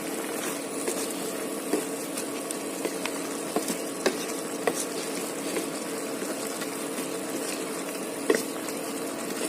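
Chicken and potato curry sizzling and simmering in a pan while a spoon stirs it, clicking against the pan now and then.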